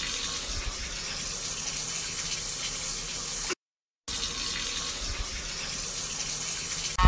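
Bathtub faucet running, water pouring steadily into the tub. The sound drops out for about half a second roughly three and a half seconds in.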